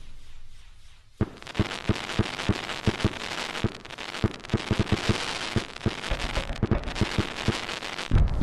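Fireshot 'Disney Lightning' firework's stars going off in a dense, irregular run of sharp pops and crackles, starting about a second in. A deep boom comes near the end.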